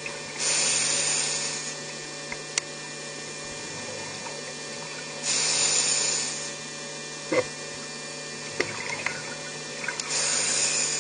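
Scuba diver exhaling through a regulator underwater: three bursts of rushing bubbles, each about a second long and roughly five seconds apart, with a few sharp clicks in between.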